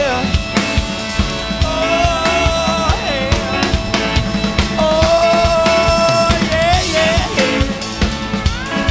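Live rock band playing an instrumental section: a drum kit keeps a steady beat under a lead line of long held notes that bend and slide in pitch.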